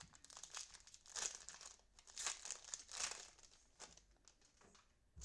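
Sports trading cards and their pack wrappers being handled: faint crinkling and rustling in several short swishes, the strongest about one, two and three seconds in.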